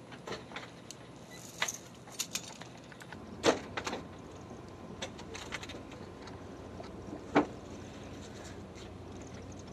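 Scattered clicks, rattles and sharp metallic knocks as crew handle the cockpit door and fittings of a parked UH-60 Black Hawk helicopter, with two louder knocks about three and a half and seven seconds in, over a faint steady hum.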